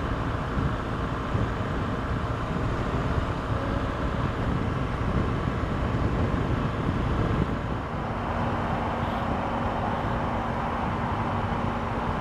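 BMW R 1200 GS boxer-twin motorcycle cruising at steady motorway speed, its engine running under wind and tyre noise. About eight seconds in the engine note steps slightly lower.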